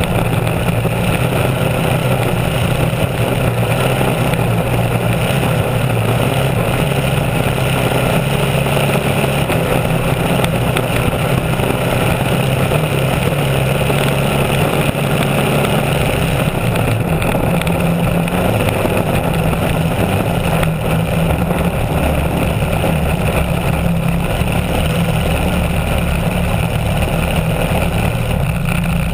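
Wooden racing hydroplane running at speed, its engine a steady, unbroken note under the rush of spray and wind across the open deck.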